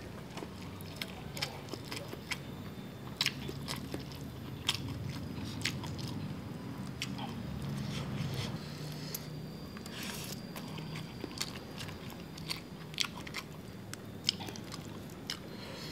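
Close-up chewing and crunching of whole cooked eel with rice, with many short, sharp crunches scattered throughout.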